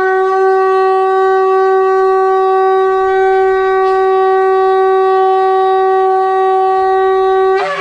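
Shofar (ram's horn) sounding one long, steady blast of about seven and a half seconds on a single held pitch, breaking briefly upward as it ends.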